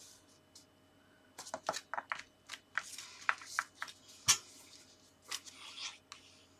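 Sheets of card and paper being handled at a craft table: a run of light rustles and taps, with one sharper tap a little after four seconds in.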